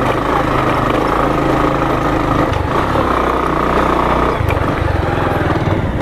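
Motorcycle engine running under way over a rough dirt track, its note changing twice, about two and a half and four and a half seconds in.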